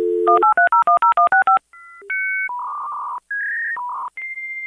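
Dial-up modem placing a call: a steady dial tone, about ten quick touch-tone digits, then a run of answer and handshake tones with hissing carrier noise.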